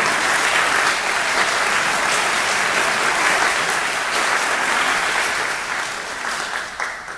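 A church congregation applauding to welcome a speaker to the front, with dense steady clapping that fades out near the end.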